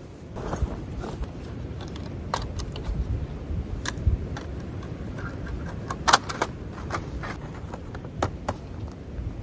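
Scattered light clicks and clinks over a low rumble, with a louder clink about six seconds in.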